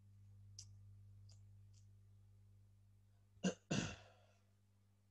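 A man clears his throat in two short bursts about three and a half seconds in, over a low steady electrical hum. A few faint clicks come in the first two seconds.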